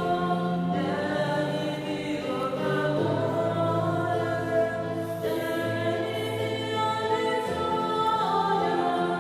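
Choral singing in slow, held notes that change every second or two over a low bass line.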